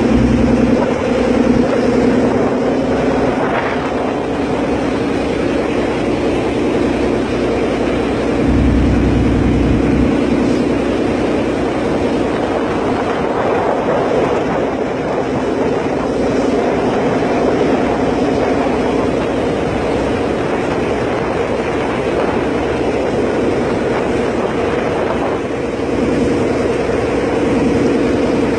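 Ferry engine running with a steady drone, heard on the open deck with wind buffeting the microphone; a stronger gust hits about nine seconds in.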